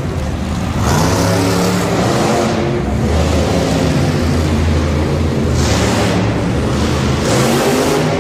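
Monster truck engines, supercharged V8s, revving and running loud, their pitch rising and falling over and over as the trucks drive and turn.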